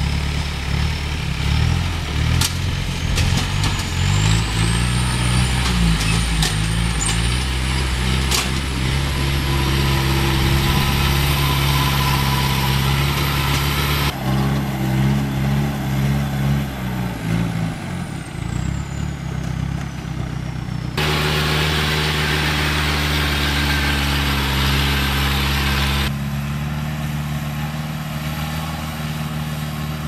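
Engine of a tracked rice harvester converted to haul rice sacks, running as the machine crawls over muddy ground, its speed rising and falling. A thin high whine slowly rises and later falls, and the sound changes abruptly three times.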